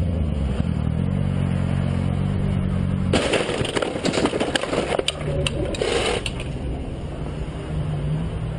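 Sport motorcycle's engine running steadily, then about three seconds in it crashes into a car: a sudden burst of impacts and clattering lasting about three seconds. After the crash a low steady engine hum remains.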